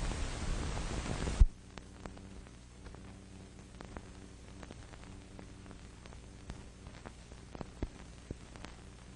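Old optical film soundtrack playing without program sound: a hiss for about the first second and a half, cut off by a sharp pop, then a faint steady low hum with scattered clicks and crackles.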